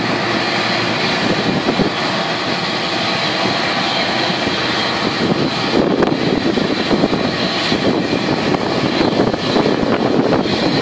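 Boeing 747-400 freighter on pushback: a steady jet whine over a continuous rushing noise, growing louder about halfway through.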